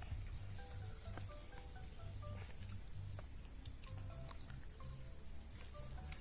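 Steady high-pitched chirring of crickets, with short, faint melodic notes sounding over it now and then.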